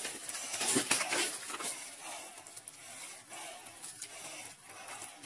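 Fishing line and slushy water scraping and splashing in a hole cut in the ice as the line is worked by hand. A run of sharp scrapes about a second in is the loudest part, and it grows quieter after that.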